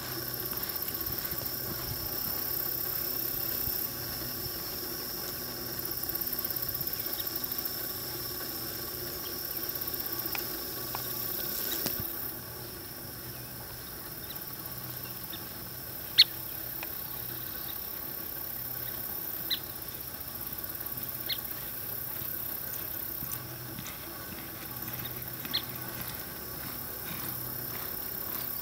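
Red dun quarter horse gelding loping under saddle on soft arena dirt, its hoofbeats a faint regular beat beneath a steady high-pitched outdoor hiss and whine. A few sharp clicks stand out, the loudest about 16 seconds in.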